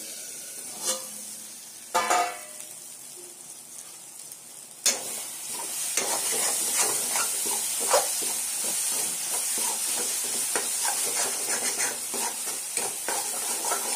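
A steel plate lid clanks with a brief ringing note about two seconds in. From about five seconds, a masala of onions and softened tomatoes sizzles in a metal kadai while a spatula stirs it and scrapes the pan.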